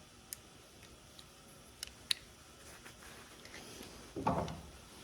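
Scattered light clicks and taps of small parts being handled while the grinder's wiring and housing are worked back together, with a short louder rustle about four seconds in.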